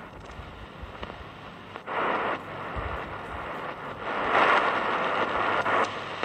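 G-track portable radio's speaker hissing with AM static as the tuning knob is turned between stations on the AM band. The static swells about two seconds in and again from about four seconds.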